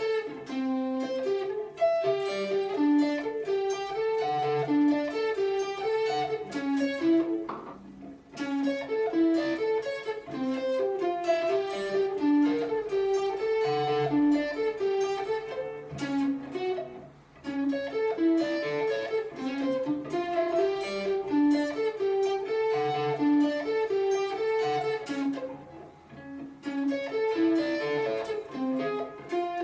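Guitar played solo, picking a fast repeating single-note arpeggio riff. It breaks off briefly three times and starts over, as in practice.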